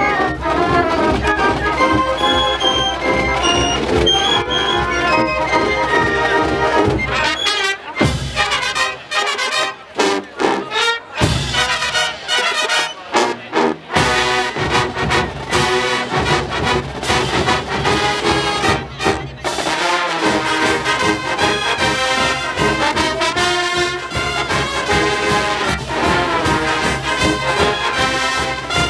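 Marching band brass (trumpets, trombones and sousaphones) playing a loud up-tempo tune. About eight seconds in, the band plays short punched hits with brief gaps between them for several seconds, then goes back to full, continuous playing.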